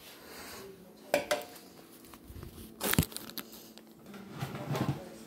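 Rustling handling noise of a handheld phone being moved about, with two sharp knocks: one about a second in and a louder one about three seconds in.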